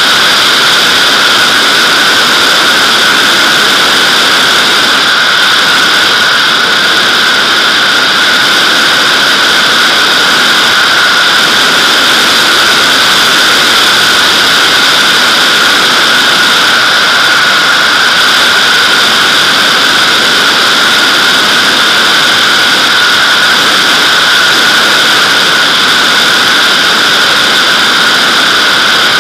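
Loud, steady rush of airflow over a camera mounted on the back of a Nimbus-2 glider's fuselage, in flight with the tail brake parachute deployed. It is an even hiss with a constant whistling edge and does not change.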